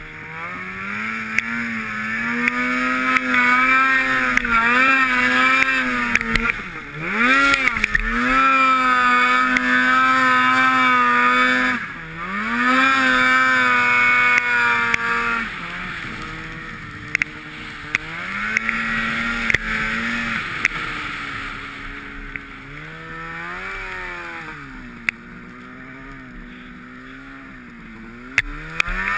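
Polaris Pro RMK snowmobile's two-stroke engine running hard through deep powder, held at high revs with the throttle chopped and reopened twice, about seven and twelve seconds in. After about fifteen seconds it runs lower and quieter, the revs rising and falling as the sled floats and drifts, with a few sharp ticks.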